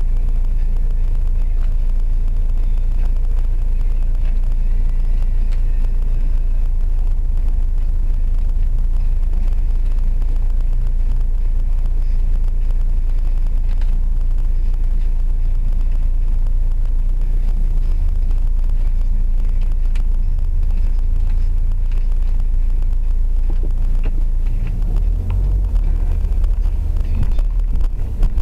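Steady low rumble of a car idling, heard from inside the cabin. Near the end it grows louder and uneven as the car pulls away.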